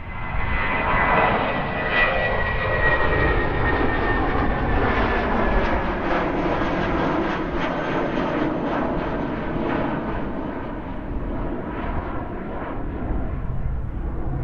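Engines of an aircraft passing the airport, a loud steady rumble with a high whine that slowly falls in pitch. The noise swells about a second in and stays strong before easing slightly near the end.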